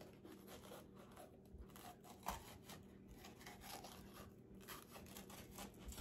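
Faint sounds of a knife cutting through an orange pepper: soft slicing and scraping with light knocks, one sharper knock about two seconds in.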